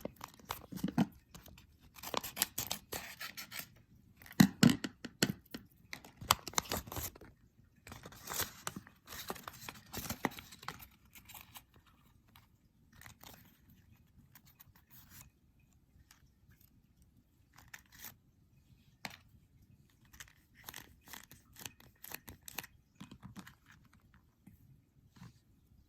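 A plastic blind-bag packet being opened and handled: a dense run of crinkling, scraping and crackling for about the first half, thinning to sparse, faint rustles and ticks after that.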